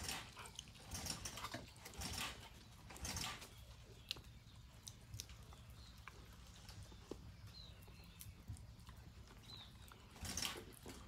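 Dog chewing and smacking while eating: a few short, noisy bursts in the first three seconds and again near the end, with scattered small clicks between.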